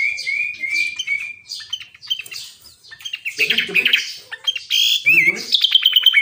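Sooty-headed bulbul (kutilang) singing loudly and continuously, with slurred whistled notes at the start and rapid runs of short repeated notes further on. Deeper, rougher sounds come in briefly twice in the middle.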